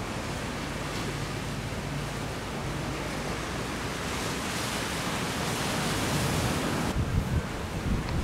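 Ocean surf breaking and wind rushing, with wind buffeting the microphone. About seven seconds in, the hiss drops away suddenly and a low, gusty wind rumble takes over.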